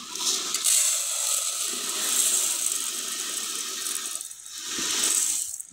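Dry uncooked rice grains pouring in a stream from a plastic container into a metal pot: a continuous grainy hiss and rattle of grains landing on grains and metal, easing about four seconds in and then swelling again.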